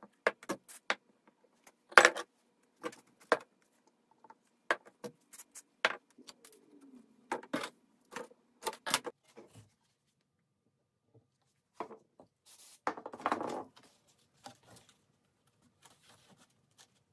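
Irregular clicks and taps of thin wooden strips being handled and fitted against a wire lamp-shade frame, with a short rustling scrape toward the end.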